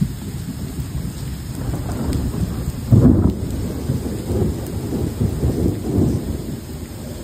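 Thunder rumbling on and on over steady heavy rain, with a louder peal of thunder about three seconds in.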